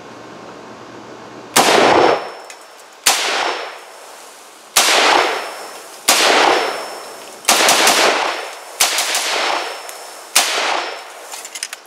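Poly Tech M14S rifle in 7.62×51 mm firing seven semi-automatic shots at a slow, steady pace, about one every second and a half, each shot trailing off in an echo.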